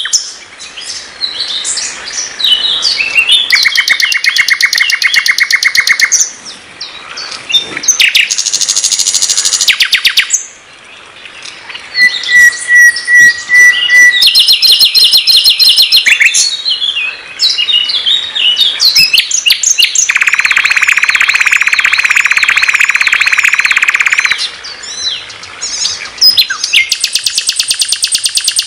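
Sikatan londo (common nightingale) singing loudly, a varied song of fast repeated-note trills and rattles alternating with clear whistled notes, with short pauses between phrases.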